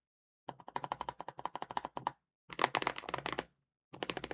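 Fast typing on a mechanical keyboard with tactile switches: rapid keystrokes in three bursts, with short pauses between them.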